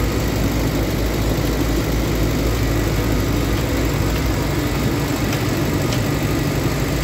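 Diesel engine of a Tata Hitachi EX70 excavator running steadily, heard from inside the operator's cab while the machine works.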